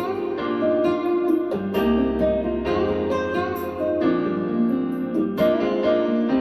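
Piano-led music with a bass line, played back through a pair of KEF LSX wireless speakers.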